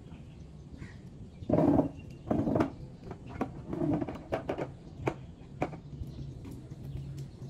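Handling noises from car-washing gear: two louder knocks and scrapes as a plastic bucket is shifted onto a small stool, then a run of light clicks and knocks, over a steady low hum.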